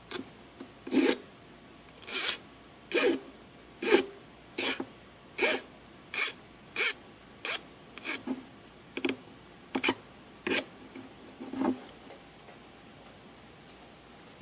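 Metal hand file rasping in short strokes, about one a second, across the burned copper tip of a cheap soldering iron to dress it back down to bare copper and reshape it. The strokes stop near the end.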